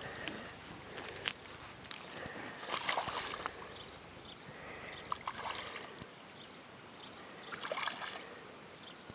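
A hooked bream, caught by the fin, splashing and thrashing at the water surface as it is played on a rod, in bursts every two seconds or so.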